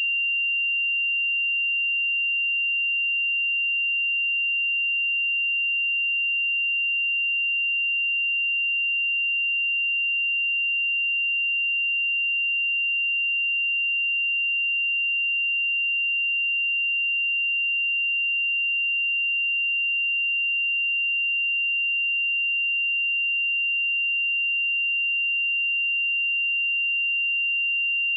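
A steady, unbroken 2775 Hz sine-wave test tone: a single pure high-pitched tone held at constant loudness.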